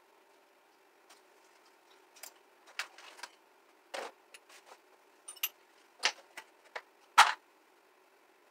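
Scattered clicks, clinks and knocks of hand tools and metal moped parts being handled and set down, with a sharper knock about seven seconds in.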